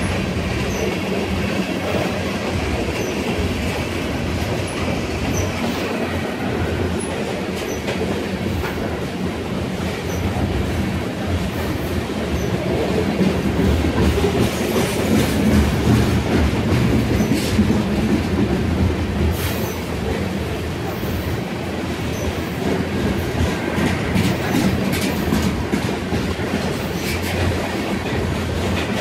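BNSF freight train's covered hopper cars rolling past close by: a steady rumble of steel wheels on rail with a run of clicks as the wheels cross rail joints, swelling a little in the middle.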